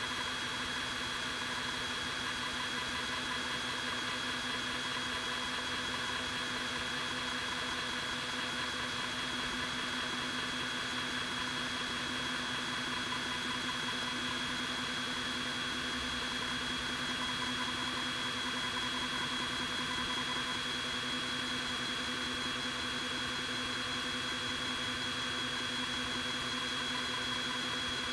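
Creality Falcon 2 22W diode laser engraver running while it engraves: a steady hum and hiss with several fixed tones, from its built-in air-assist compressor and fans.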